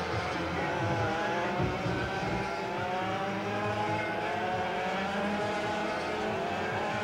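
Racing kart engines revving as several karts drive through a corner, their overlapping pitches rising as they accelerate.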